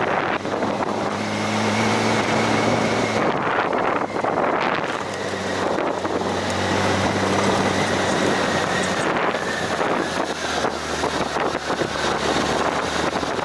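Motorcycle engine running at road speed with wind rushing over the microphone; the engine note drops lower about ten seconds in.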